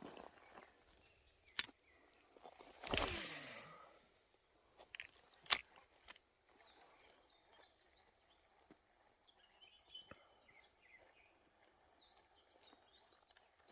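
Fishing gear being handled: a few sharp clicks, a one-second whirring swish that falls in pitch as it dies away, like a reel spool paying out line on a cast, and one loud click a couple of seconds later. Faint birds chirp in the second half.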